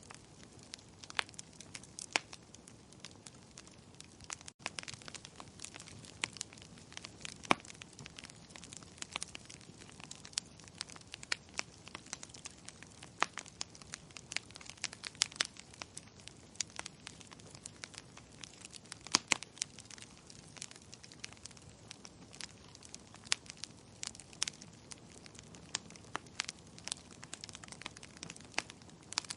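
Wood fire crackling in a fireplace: a steady low hiss of burning with frequent irregular sharp pops and snaps, a few louder ones.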